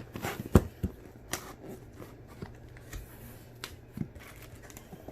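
Cardboard box being opened and unpacked by hand: irregular taps, scrapes and rustles of cardboard and packaging, with several sharp clicks.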